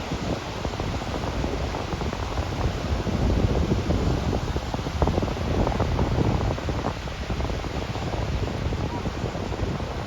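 Sea waves washing onto a sandy beach, with wind buffeting the microphone in gusty low rumbles.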